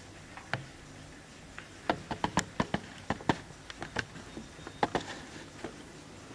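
A run of a dozen or more sharp clicks and taps at an uneven pace, from the Warmink vintage Dutch mantel clock or from hands working on it, starting about two seconds in and stopping shortly before the end. This is not the even beat of a clock's ticking.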